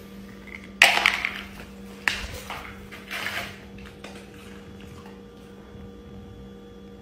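Clear plastic bowl clattering on a concrete floor: a loud rattle about a second in, a sharp knock about two seconds in, and another rattle as a dog grabs the bowl in its mouth. A steady low hum runs underneath.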